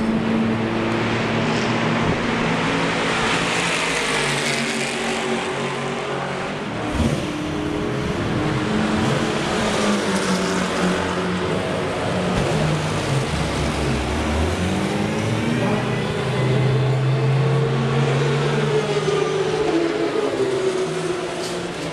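Racing car engines running in a pit lane, their revs rising and falling, with a short sharp knock about seven seconds in.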